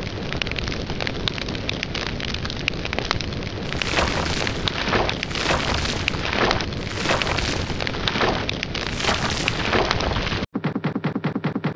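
Furnace fire crackling steadily, with about five whooshing surges of flame from about four seconds in. Near the end it cuts off abruptly into a fast, even pulsing buzz.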